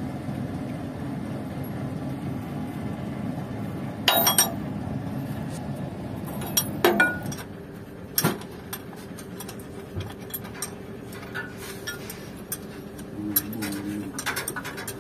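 Metal-on-metal clinks of a wrench working the bolts of a truck driveshaft universal-joint flange: a few sharp clanks about four, seven and eight seconds in, then lighter ticking and tapping. A steady low background noise drops away about eight seconds in.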